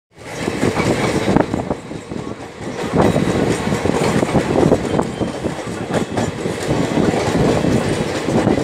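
Passenger train running along the track, heard from an open coach window: a steady rumble of wheels on rails with scattered clicks and knocks.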